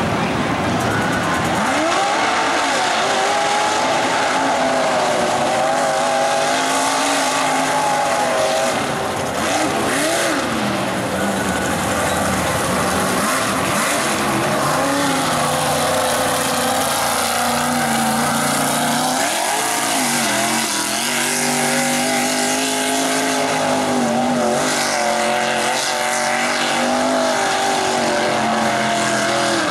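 Big-block engine of a mega mud truck revving hard as it drives through the mud, its pitch rising and falling again and again.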